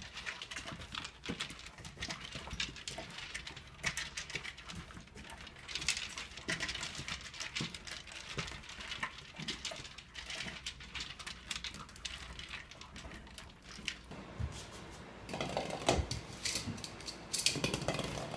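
Puppies eating kibble from plastic slow-feeder bowls: dense small clicks and rattles of kibble against the plastic, with chewing. In the last few seconds the sound changes to louder, lower noises with a few sharp knocks.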